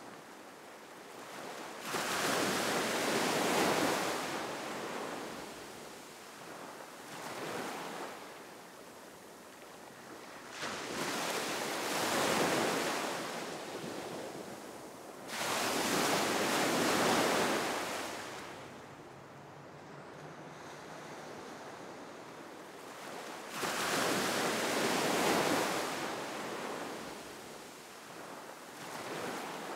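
Sea waves breaking and washing in, the rush swelling and fading every few seconds.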